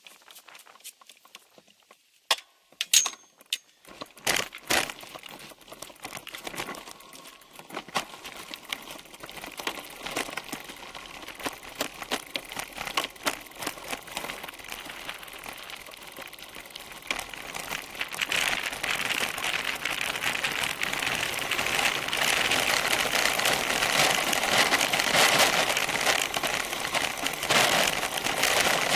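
Bicycle tyres crunching over loose gravel, with the bike rattling. A few sharp knocks come a few seconds in, and the crunching grows louder about eighteen seconds in as the bike picks up speed downhill.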